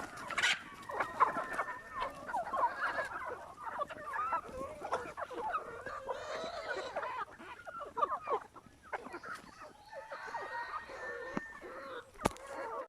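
A flock of free-range chickens clucking and chirping over one another as they peck at scattered leftover rice, with a few sharp knocks among them.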